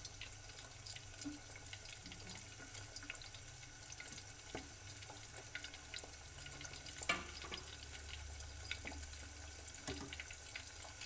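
Chicken wings deep-frying in a pot of hot oil, a steady crackle of many small pops, with a sharper click about seven seconds in.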